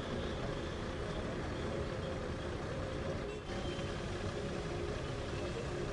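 Heavy engines running steadily, a low rumble with a constant hum, with a brief dip about three and a half seconds in.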